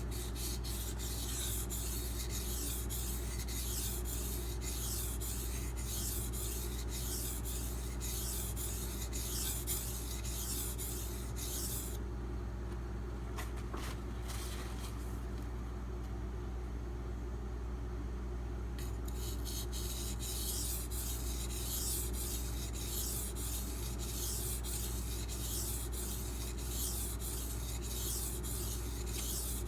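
D2 steel knife blade stroked back and forth on a 1000-grit silicon carbide benchstone: a rhythmic scraping at roughly two strokes a second. The strokes lapse for several seconds in the middle, then resume. A steady low hum runs underneath.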